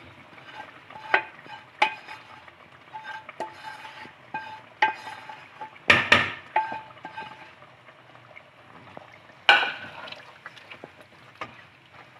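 A plastic spatula scrapes fried spinach out of a non-stick frying pan into a metal cooking pot, with sharp knocks that set the pan ringing briefly. The loudest knocks come about six seconds in and again near ten seconds. After that it is quieter stirring in the pot.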